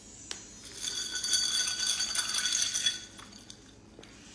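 A straw stirring electrolyte powder into a drink in a clear cup: a quick clinking rattle against the cup with a ringing note, starting about a second in and lasting about two seconds.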